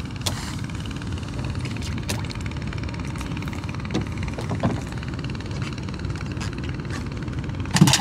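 Small boat's motor running steadily with a low rumble, with a few light knocks over it.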